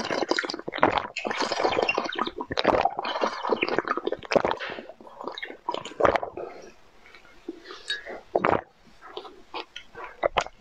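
Wet slurping and gulping of a drink sipped from a glass, dense and continuous for about six seconds. Fewer, separate wet mouth clicks and smacks follow.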